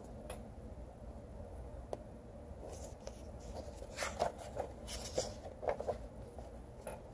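Paper pages of a picture book being handled and turned, brief rustling scrapes clustered in the second half.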